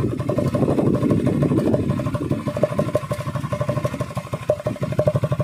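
Small single-cylinder commuter motorcycle engine running at a steady idle, firing in rapid even pulses, its exhaust blowing through an empty soft-drink can wired at the silencer outlet, which adds a steady tone over the pulses. It is a home hack meant to make a 100 cc bike sound like a KTM Duke.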